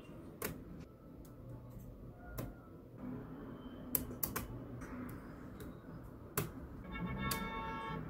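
Small neodymium magnetic balls clicking against each other as slabs of them are handled and snapped onto a build: scattered sharp clicks, the loudest about four and six seconds in. Near the end a short pitched sound with several tones comes in.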